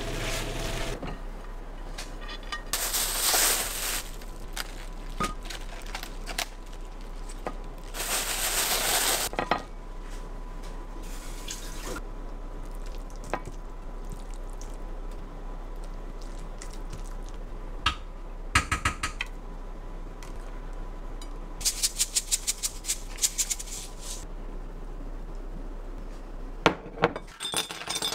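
Kitchen work sounds: utensils knocking and clinking on dishes and pans, two short hissing bursts in the first ten seconds, and a run of quick taps later on.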